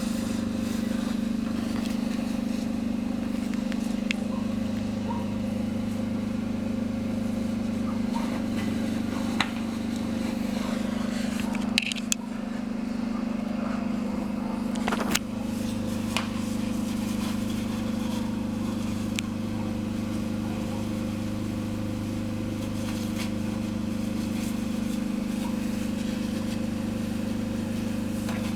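Sharp cracks and pops from a car fire, scattered every few seconds and loudest about halfway through, over a steady low engine-like hum.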